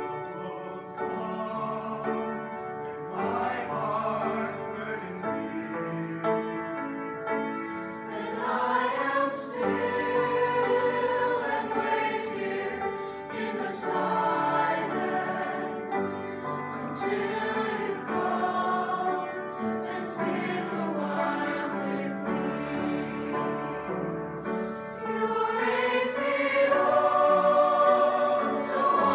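Background music with a choir singing held, gliding notes, growing louder near the end.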